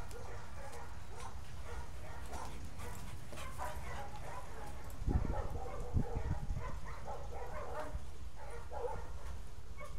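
Dog barking at intervals over a steady low rumble, with two thumps about five and six seconds in.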